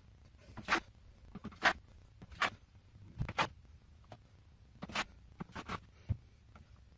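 A series of short scraping or rubbing strokes, about a dozen at uneven spacing, roughly one or two a second.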